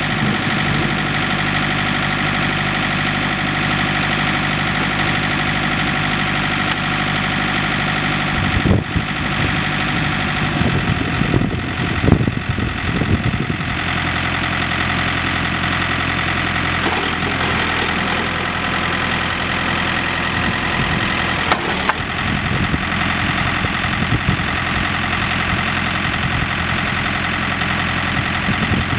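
Diesel engine of a 2008 John Deere 110 4x4 tractor loader backhoe running steadily. Its note changes about nine seconds in, and a cluster of clunks and knocks follows over the next few seconds, with a couple of single clicks later.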